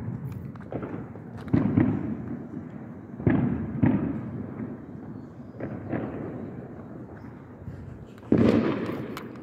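Fireworks going off: a series of about eight sudden bangs spread over several seconds, each trailing off in a rolling echo, the biggest about a second and a half in, three seconds in and near the end.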